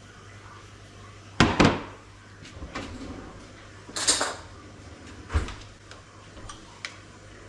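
Kitchenware clatter: two sharp knocks about one and a half seconds in, then scattered lighter clinks and rattles of utensils and crockery.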